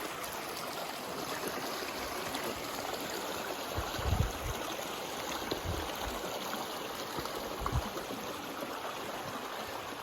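Creek water running steadily below, with a few soft low thumps; the strongest comes about four seconds in.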